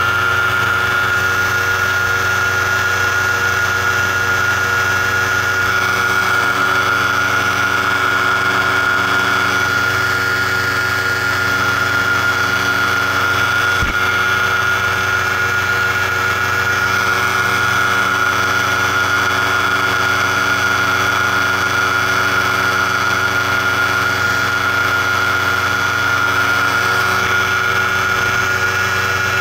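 Paramotor engine and propeller running steadily in flight, held at a constant throttle, with a strong steady high hum over the engine note.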